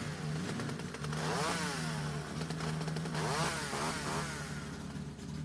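WPL radio-controlled truck's motor and gearbox whining as it drives. The whine rises and falls with the throttle several times.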